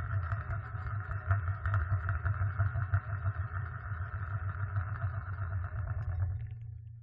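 Sheet-metal tin lid spinning and wobbling on its rim against a hard surface, a continuous metallic rattle of fast small clicks that stops about six seconds in as the lid settles, leaving a short ringing fade.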